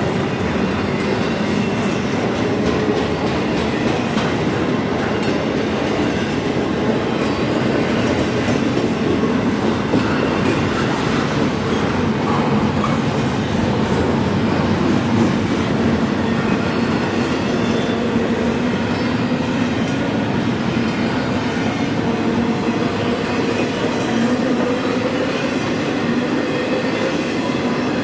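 Double-stack intermodal container train rolling past: a steady, loud noise of the well cars' steel wheels running on the rails, with faint humming tones that waver slowly in pitch.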